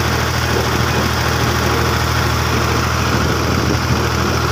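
Fiat tractor's diesel engine running steadily as the tractor drives along a road.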